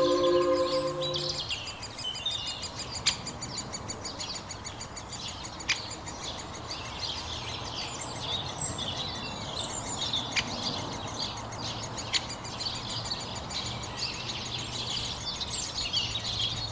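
Woodland bird chorus: many small songbirds chirping and singing at once, with a few sharp clicks here and there. A held musical chord fades out about a second in.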